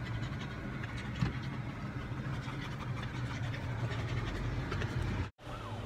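Car engine and road noise heard from inside the cabin: a steady low hum. The sound drops out for a moment near the end.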